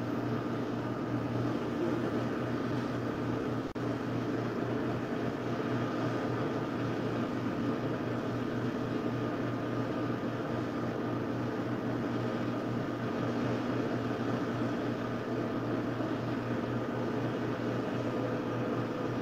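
Steady low hum with a rushing background noise, briefly dropping out a little under four seconds in.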